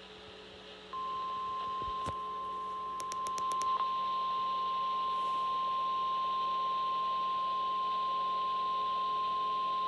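Emergency Alert System attention tone as sent over NOAA Weather Radio: a single steady 1050 Hz tone that starts about a second in and holds for about nine seconds, signalling that an emergency alert is about to be read.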